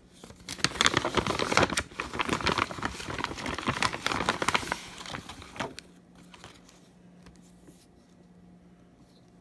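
Clear plastic bag crinkling and rustling as it is handled and an adapter is pulled out of it. The crinkling stops about six seconds in.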